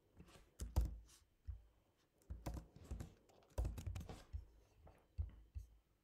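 Typing on a computer keyboard: uneven runs of keystrokes with short pauses between them.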